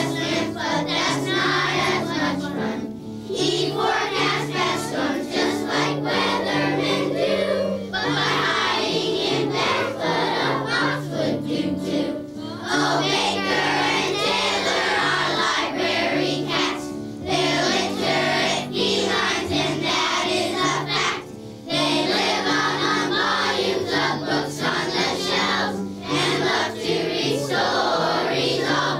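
A song sung by a chorus of voices over a repeating bass line with a steady beat. It is a song about the library cats Baker and Taylor, telling how they lie under desk lamps and love to read stories.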